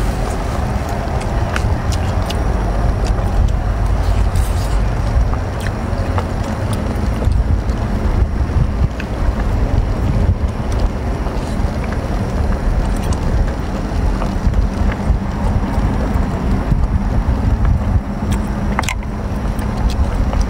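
Steady low rumble of wind buffeting the microphone outdoors, with scattered small clicks of sea-snail shells being handled and picked apart.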